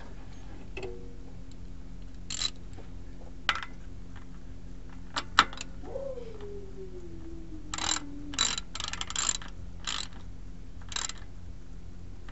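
3/8-inch ratchet socket wrench clicking in short bursts as the differential fill plug is turned in and tightened. About six seconds in, a cat gives one long meow that falls in pitch.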